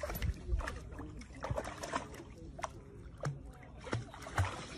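Water splashing irregularly as a dog wades into a lake and starts swimming, its front legs paddling.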